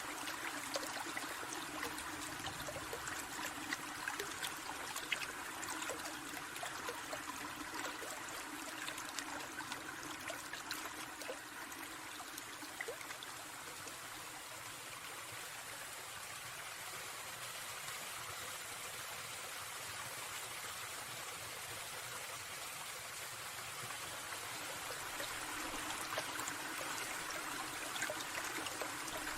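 A small forest stream trickling steadily, with many small splashes and drips.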